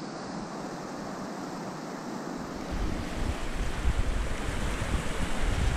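Wind buffeting the microphone over a steady rushing noise, the gusts growing stronger about three seconds in.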